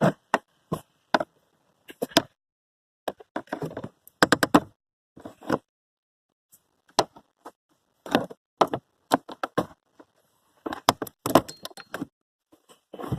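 Irregular clicks and knocks of hand tools and metal or plastic parts being handled while a car's blower motor is taken out, in short clusters with gaps between.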